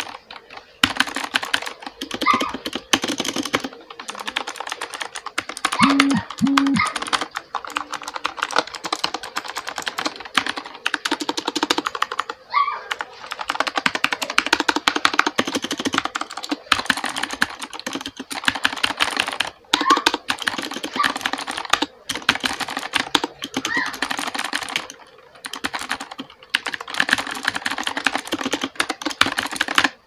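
Fast, continuous typing on a budget plastic-cased K28 mechanical keyboard: dense clacking of the mechanical key switches, broken by a few brief pauses.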